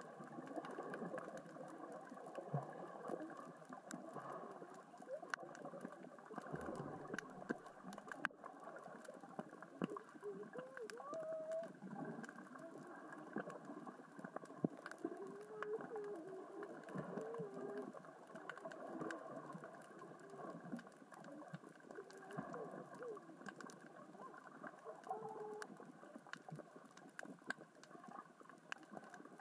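Underwater ambience: a steady crackle of many small clicks, the sound of small rocks rolling across the sea floor in the current and tide. Through the middle stretch, short wavering tones come and go now and then.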